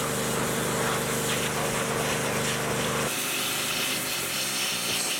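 Pressure washer running, its pump humming steadily under the hiss of the water jet blasting grime off an engine block. About three seconds in the hum drops away and the spray hiss carries on.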